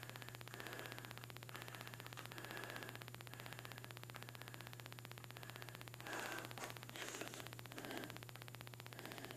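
Faint steady hiss and low electrical hum from the recording, with a few brief soft rustles a little past the middle.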